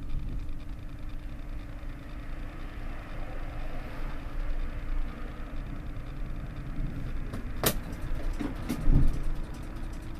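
Tram standing still at a stop, its on-board equipment giving a steady low hum. A sharp click comes about three-quarters of the way through, followed by a few knocks.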